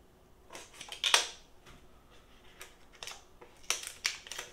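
Small cardboard product box being handled and opened by hand: a series of short scrapes and taps, the loudest about a second in and a few more near the end.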